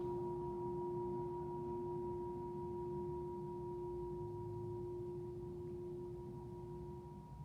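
Tibetan singing bowl ringing on after a strike, a low steady tone with a fainter higher overtone above it, fading only slightly; the low tone briefly dips near the end.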